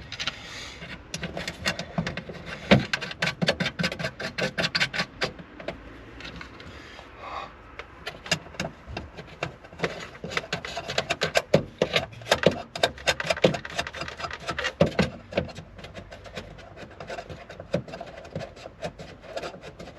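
Rapid runs of clicking with rubbing and scraping as the nuts are fastened onto the tail light's studs against its plastic housing, with quieter pauses between the runs.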